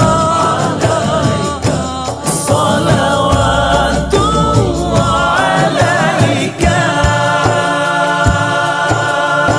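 Background music: a song with voices singing over a musical accompaniment.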